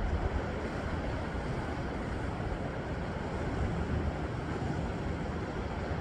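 Ocean surf washing over shoreline rocks as a steady rushing, with a low rumble of wind on the microphone beneath it.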